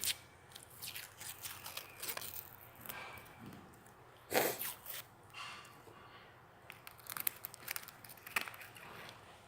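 Toy packaging being pulled open at its pull tab: scattered rustling, crinkling and tearing of paper and plastic, with one louder rip about four and a half seconds in and a run of crackles near the end.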